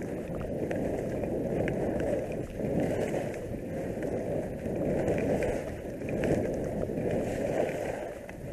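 Skis sliding and scraping over chopped-up piste snow, heard as a continuous rushing noise that swells and eases every second or two, with wind on the action camera's microphone.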